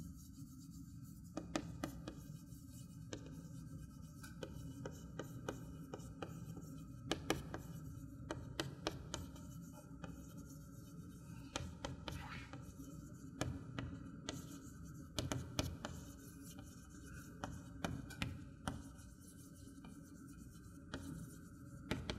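Chalk tapping and scratching on a chalkboard as a line of text is handwritten, in short irregular strokes with pauses between words, over a steady low hum.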